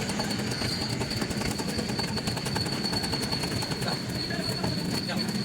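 Metalworking noise from a truck rear-axle crack repair: a steady rough rushing noise, full of fine crackling, with a thin high steady whine over it.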